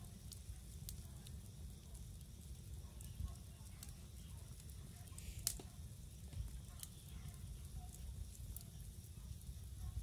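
Wood campfire burning, with scattered sharp crackles and pops from the logs and one louder pop about halfway through, over a steady low rumble.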